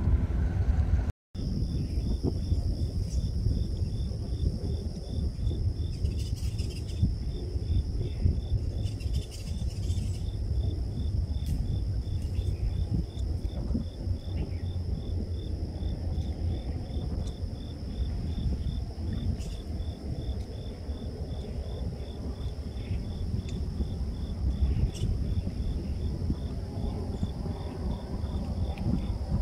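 Insects trilling: one holds a steady high-pitched trill while another chirps about twice a second, over a low rumble. The sound cuts out briefly about a second in.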